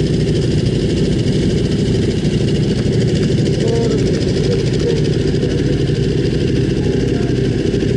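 Yamaha Ténéré 700's parallel-twin engine running steadily at an even level.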